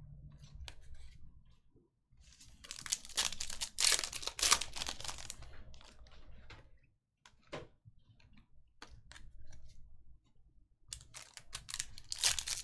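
Trading cards being handled and flipped through with light clicks and rustles, and a foil card-pack wrapper crinkling as it is torn open near the end.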